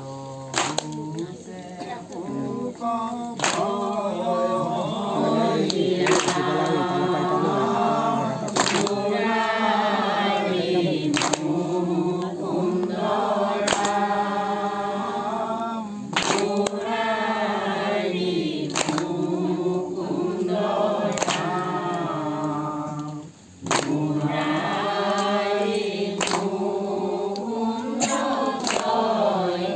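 A group of men singing Assamese devotional nam together without instruments, with a sharp hand clap about every two and a half seconds keeping the beat. The singing breaks off briefly near the end and resumes.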